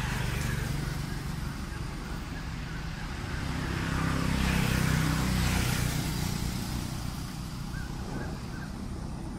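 A motor vehicle passing on a nearby road. Its engine and tyre noise build to their loudest about halfway through, then fade away.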